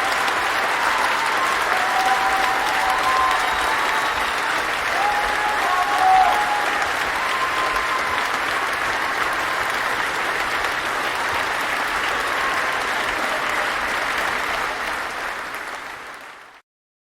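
Crowd applause: many people clapping steadily in a dense, even patter, fading out near the end and then stopping.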